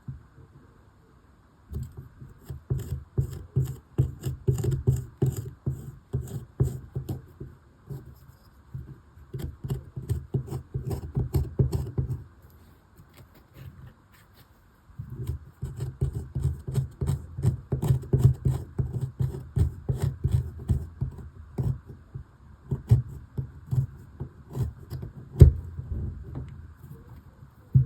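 A hand tool scraping and chipping at the plaster block of a dig kit in rapid strokes, with a pause in the middle and one sharp knock about 25 seconds in.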